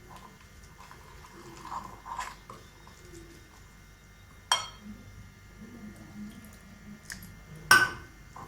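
Thick gram-flour batter being mixed with water in a bowl, soft wet stirring sounds, with two sharp kitchen clinks, one about halfway through and a louder one near the end.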